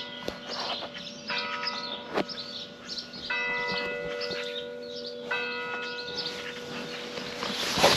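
Church bell tolling slowly: three strikes about two seconds apart, each left ringing with several overlapping tones.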